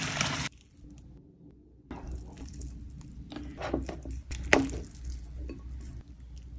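Wooden chopsticks tossing sauce-coated noodles in a ceramic bowl: wet squishing with a run of clicks and clinks of the chopsticks against the bowl, the loudest knock about four and a half seconds in. Before that, a half-second rush of noodles going into boiling water cuts off suddenly.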